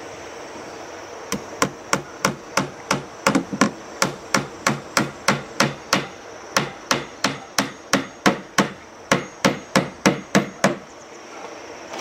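Claw hammer driving nails into a wooden plank panel. It strikes about thirty times at roughly three blows a second, starting about a second in, pausing briefly around the middle and stopping near the end.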